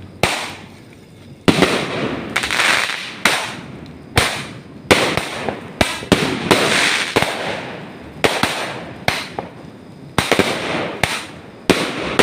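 Fireworks going off in a steady barrage: about a dozen sharp bangs, roughly one a second, each trailing a hissing crackle that fades away.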